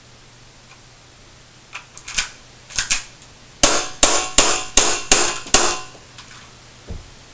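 KWA Beretta M9 gas blowback airsoft pistol firing six quick shots, about two and a half a second, each a sharp pop with the slide cycling. A few softer clicks come before the shots, and a dull thump follows near the end.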